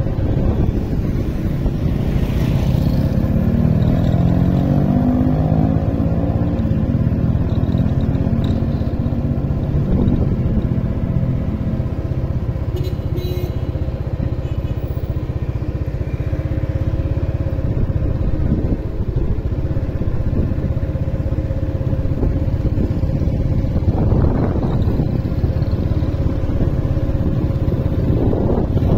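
Motorbike engine running while riding, with wind noise on the microphone; the engine's pitch rises between about two and seven seconds in as it speeds up.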